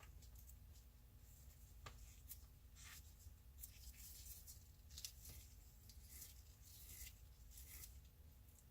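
Faint scraping and rustling of wires being handled and joined together by hand, with scattered small clicks, over a low steady hum.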